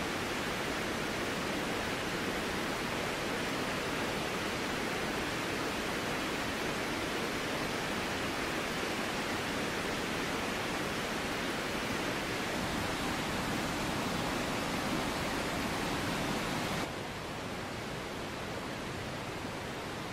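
Steady rush of a mountain river running over rocks, with water spilling over a concrete weir. About three seconds before the end it cuts to a quieter, duller steady hiss.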